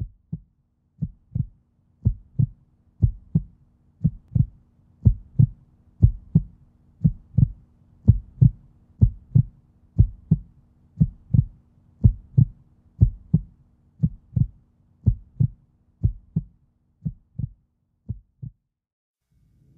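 Heartbeat: paired lub-dub thumps about once a second, growing louder over the first few seconds and fading out near the end, over a faint steady hum.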